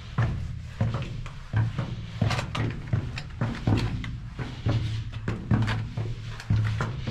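Footsteps on the stone floor of a narrow rock-cut tunnel, about one scuffing step every three-quarters of a second, with a low rumble of movement between them.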